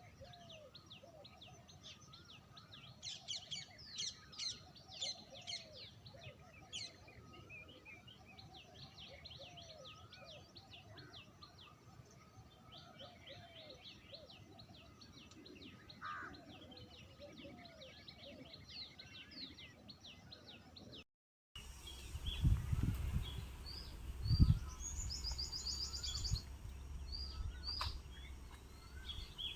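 Wild birds calling in a park: several birds chirping, with quick series of high notes and some lower calls. About 21 seconds in, the sound breaks off briefly. After that come a few loud low rumbling thumps and a short high trill.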